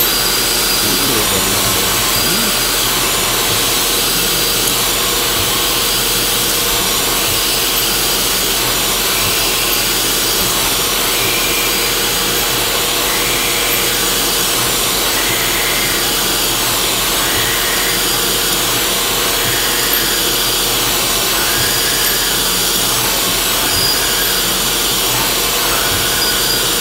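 A 1995 Haas VF-3 CNC mill's spindle drives a fluted cutter down into a deep hole in a metal block, cutting steadily. Over it runs the continuous hiss of a mist coolant spray aimed at the cut.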